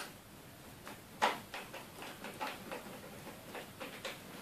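Light, irregular clicks and taps of a screwdriver working a screw out of a desktop computer's case and the screw being handled, the sharpest click about a second in.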